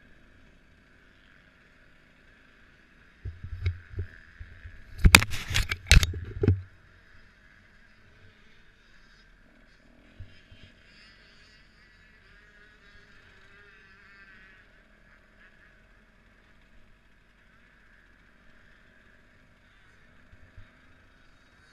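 Motocross bike engine heard faintly through a mounted camera's housing, running and changing pitch as the bike is ridden. A burst of loud knocks and thumps comes about three seconds in and lasts a few seconds.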